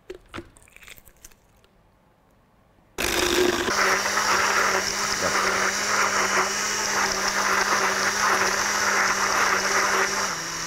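Countertop electric blender switched on about three seconds in and running steadily, blending a full jar of milk and fruit into a creamy drink. Its motor tone drops slightly in pitch near the end. A few faint clicks come before it starts, as the jar and lid are handled.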